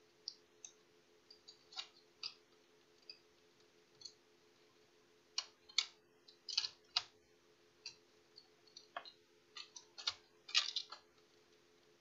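Irregular clicks and taps of a laptop motherboard being seated back into its plastic bottom case, with louder clusters about halfway through and again near the end.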